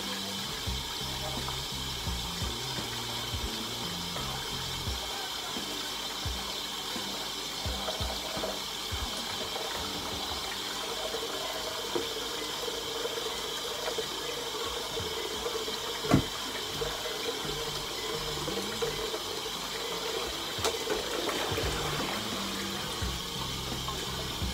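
Tap water running steadily into a kitchen sink, with one sharp knock about two-thirds of the way through.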